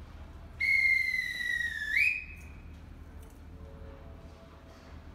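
Railway conductor's whistle blown once, one shrill blast of nearly two seconds that sags slightly in pitch and lifts at the end, the departure signal given from the train's door.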